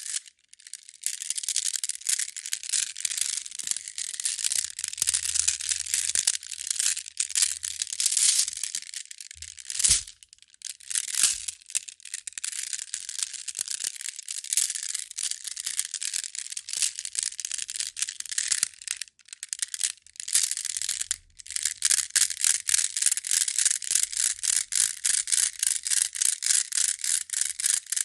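Pietersite stones clattering and grinding against each other in a dense, continuous run of small clicks, with short pauses about ten seconds in and again around twenty seconds in.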